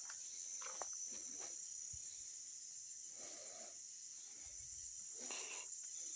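Steady high-pitched chorus of night insects, with a few brief soft noises about a second in, in the middle and near the end.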